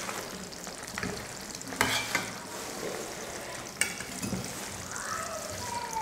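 Thick mutton liver gravy sizzling in a stainless steel kadai as a ladle stirs through it, with a few sharp clicks of the ladle against the pan, twice about two seconds apart. The water has cooked off and the oil is separating out, so the gravy fries in its own oil.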